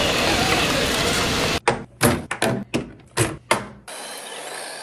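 An RC truck driving through water, with water rushing over its body and a steady noise from the running vehicle. This cuts off suddenly about a second and a half in and is followed by a quick run of about seven sharp knocks, then a quieter steady hiss.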